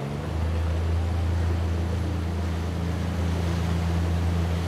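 Canal tour boat's motor running with a steady low drone, which strengthens a moment after the start.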